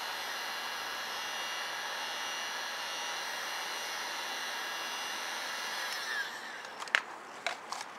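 Handheld heat gun running steadily with a fan whine as it warms headlight protection film so the adhesive takes; about six seconds in it stops, its pitch falling as it winds down, and a few sharp clicks follow near the end.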